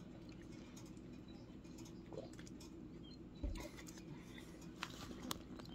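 Quiet room tone with a steady low hum. A soft bump about three and a half seconds in and a few light clicks after it come from the phone being handled and picked up off the table.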